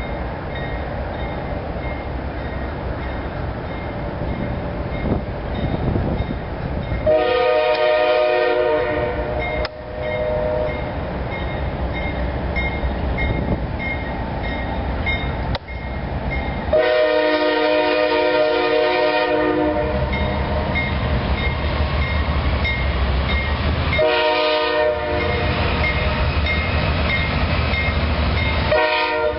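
Air horn of an approaching CSX freight train's diesel locomotive, several tones at once, sounding the grade-crossing signal: a long blast, a second long blast, a short one, and the last blast starting near the end. Under it runs the low rumble of the oncoming train.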